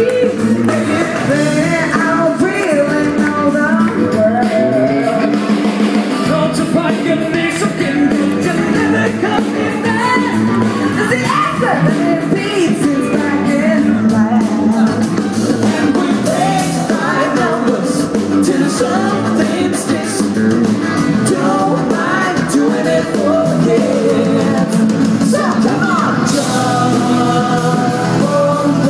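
A live band plays continuously with singing over it, recorded on a mobile phone.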